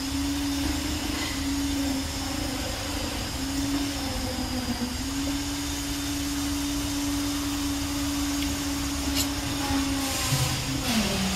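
A motor hums steadily at one held pitch. Near the end the pitch drops and a louder engine sound with a hiss joins it, like a vehicle pulling away.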